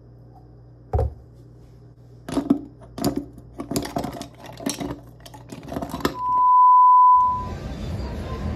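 A thump as a plastic creamer bottle is set down on the countertop, then ice cubes clinking against a drinking glass as iced coffee is stirred with a straw. Near the end a loud steady electronic beep about a second long, followed by a steady rush of background noise.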